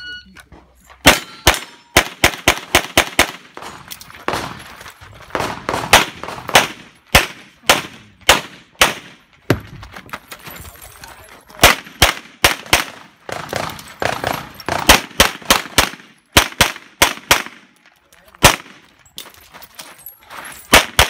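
Shot-timer start beep, then a pistol fired in fast strings of shots during a USPSA Production stage run, several rapid shots at a time with short pauses between strings as the shooter moves between positions.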